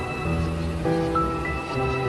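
Background music: sustained chords that change about every half-second over a steady low bass.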